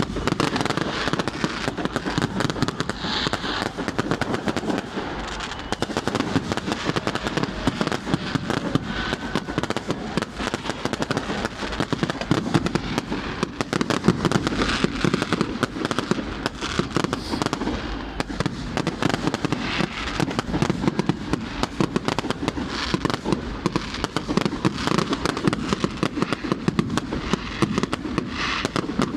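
Fireworks going off in a dense, unbroken run of crackles and pops, with no real pause.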